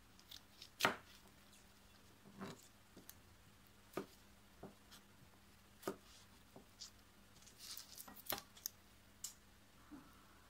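Chef's knife slicing a cucumber on a cutting board: scattered sharp knocks of the blade meeting the board, irregularly spaced about one every second or so, the loudest about a second in and a quick cluster near the end.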